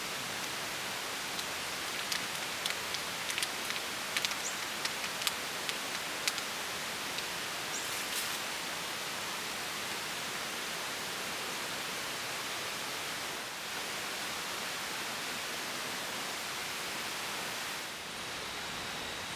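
A steady, even hiss of outdoor background noise, with a run of light clicks and taps over roughly the first eight seconds.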